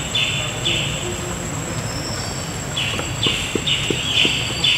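Outdoor background: a rhythmic series of short, high, buzzy calls, about two a second, that pause for a couple of seconds and then resume, over a low steady rumble and a faint steady high whine.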